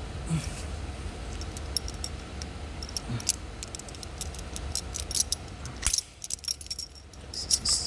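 Quick metallic clicks and rattles as a screwdriver works at the stiff spring-loaded locking bar of a jump-pack cable connector to free it. A low steady hum lies underneath and drops away about six seconds in.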